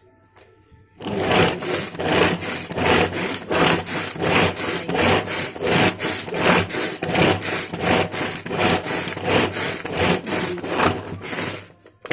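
Ganesh pull-cord manual chopper being pulled over and over, about three pulls a second: each pull rasps the cord and spins the three stainless steel blades through carrot cubes. It starts about a second in and stops just before the end.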